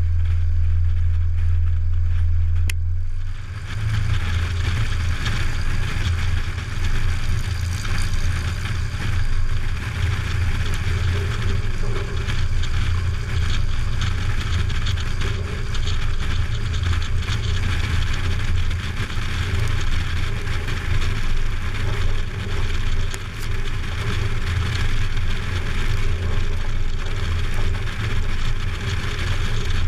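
Single-engine light aircraft's piston engine and propeller running steadily, then throttled up about three seconds in for the takeoff roll; the engine noise carries on with the rumble of the wheels on grass and rushing wind as the plane gathers speed.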